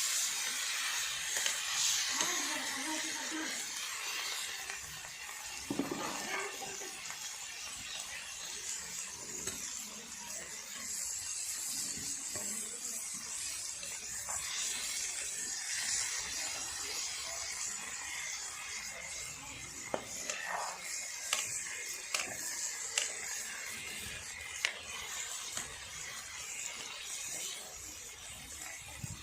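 Curry cooking in a pan over a wood-fired chula: a steady sizzling hiss with scattered sharp clicks and scrapes.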